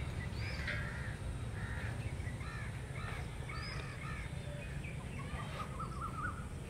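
Birds calling in the background, mostly crows cawing, with a quick run of repeated notes near the end, over a low steady rumble.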